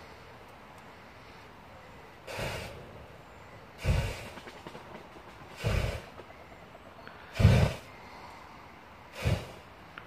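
Fire breathing: five short blown bursts of fuel spat through a hand-held torch flame, about one every two seconds, each a loud puff of breath and flame.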